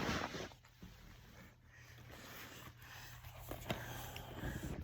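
Quiet room tone with a steady low hum and a few faint rustles and soft clicks.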